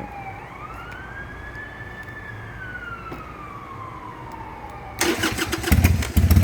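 A siren wails faintly, rising and then slowly falling. About five seconds in, the Harley-Davidson Sportster's V-twin is started with the choke out: the starter cranks briefly, then the engine catches and runs loud and steady.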